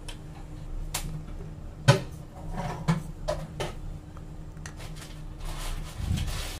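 Kitchen handling noises while salt is added to a bowl of kabab mix: several sharp taps and knocks, the loudest about two seconds in, over a steady low hum, with a brief rustle near the end.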